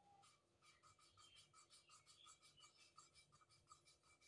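Faint rhythmic gritty rasping, about four strokes a second, as an engine valve is twisted back and forth against its seat in an aluminium cylinder head: hand lapping of the valve.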